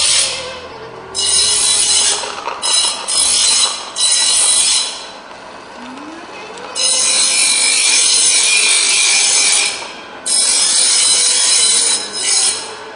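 Metal being ground on a power grinder, in harsh bursts of grinding noise: several short ones in the first five seconds, then two long ones in the second half. A faint hum rises in pitch about six seconds in.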